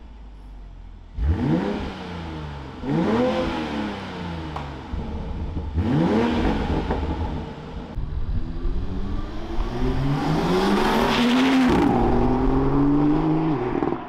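Car engine revved in three short blips, each rising and falling in pitch, then a long pull with the revs climbing steadily for about five seconds before it cuts off.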